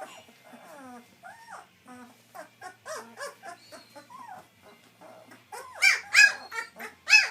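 Young German Shepherd puppies crying, many short cries that rise and fall in pitch. They are faint for the first few seconds, then grow louder from about six seconds in.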